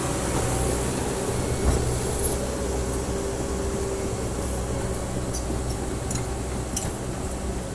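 Caterpillar D5K crawler dozer's diesel engine running steadily as the machine tracks away, fading slightly, with clinks from its steel tracks and a single knock early on.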